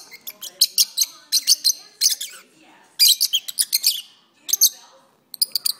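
Peach-faced lovebirds singing: clusters of rapid, sharp, high-pitched chirps and squeaks, broken by short pauses, the last cluster ending just before the end.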